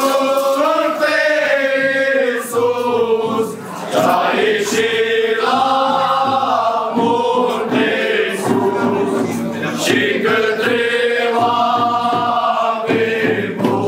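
A group of carolers, mostly men's voices, singing a Romanian colind (Christmas carol) together in long, held notes.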